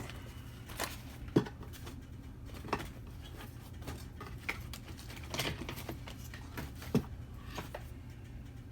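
Allen wrenches clicking and tapping against metal as they are tried in a padlock, in several scattered light strikes with the sharpest about a second and a half in and near the end, over a low steady hum.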